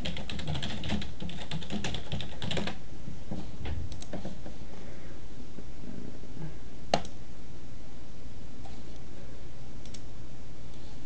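Computer keyboard typing: a fast run of keystrokes over the first three seconds or so, then a few scattered clicks, with one sharper click about seven seconds in.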